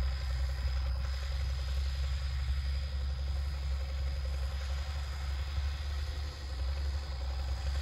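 1962 Allis-Chalmers D19 turbo diesel tractor engine running steadily under load while pulling a disk harrow.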